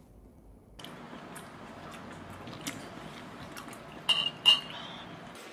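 Metal chopsticks clinking twice against a frying pan while noodles are lifted out, each clink with a brief ring, over light small clicks of eating.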